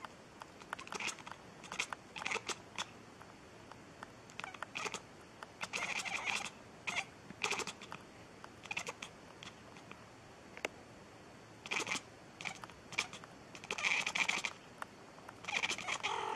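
A cat calling in a string of short, irregular chirps and meows, a few of them longer.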